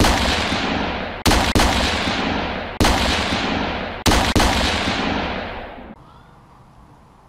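Six gunshot sounds with long echoing tails, coming as one shot, two quick shots, one shot, then two quick shots. The last tail fades out about six seconds in.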